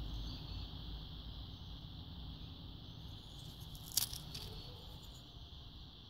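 Steady high insect chirring, with a low rumble slowly fading beneath it. A single sharp click about four seconds in, as the small copper bead is prised off the broken crucible shard.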